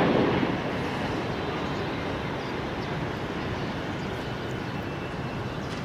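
Steady jet noise of an Airbus A330-300 airliner with Pratt & Whitney engines as it touches down on the runway, with a brief louder swell right at the start.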